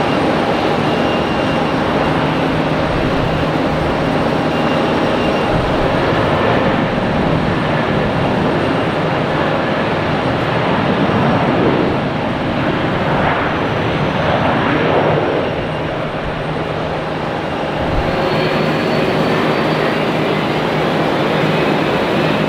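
Jet airliner passing close by, its engines a loud, steady noise with whining tones that sweep in pitch about halfway through.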